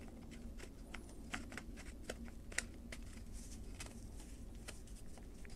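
Faint, irregular small clicks and rubbing of plastic parts as the air diverter is worked into the motor housing of a 1980s AEG FSPE 60 jigsaw.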